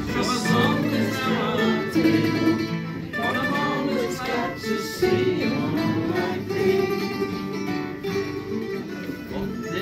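A live folk song: men's voices singing to strummed acoustic guitars and other small plucked string instruments.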